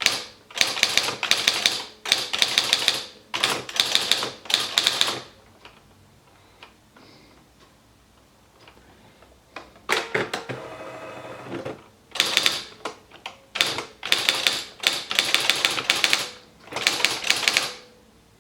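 Esselte 80 electric typewriter striking characters in fast, clattering bursts of rapid clicks, pausing for several seconds in the middle, with a brief mechanical whir about ten seconds in before the bursts resume.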